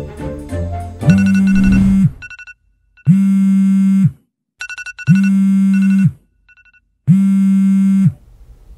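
A phone ringing: four loud one-second buzzes about two seconds apart, with short high beeps between them. Background string music plays during the first second.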